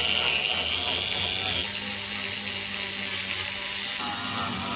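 Angle grinder running steadily as it grinds out fiberglass along the boat's transom; its tone changes about a second and a half in.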